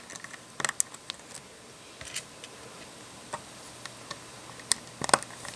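LEGO 1x1 round plastic tiles clicking as they are pressed onto the studs of a small brick build. Several short, sharp clicks come a second or more apart, the loudest near the end.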